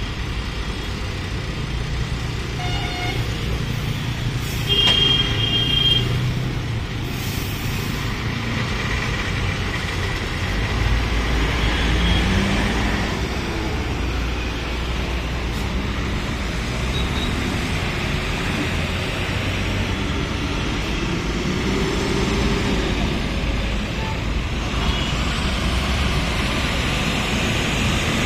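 Heavy, slow-moving highway traffic of diesel trucks and cars: engines running steadily, rising and falling in pitch a few times as vehicles pull away. Brief vehicle horn toots sound about three and five seconds in.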